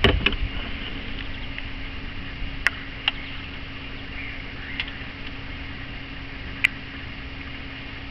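A few sharp light clicks of a new reverse light switch being threaded by hand into a manual transmission case, with a knock at the very start, over a steady low hum.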